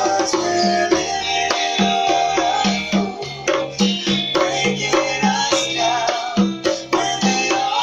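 Instrumental pop music with congas playing a steady beat, one low drum stroke about every half second, under a held melody and bass line.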